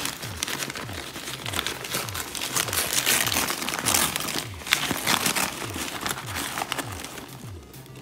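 Brown paper bag crinkling as hands open it, loudest in the middle, over background music with a steady low beat.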